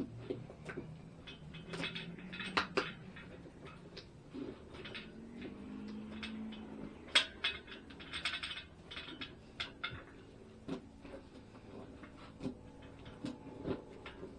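Hands working a motorcycle inner tube into the tire: irregular clicks, light knocks and rubbing of rubber and metal, with one sharper click about halfway through.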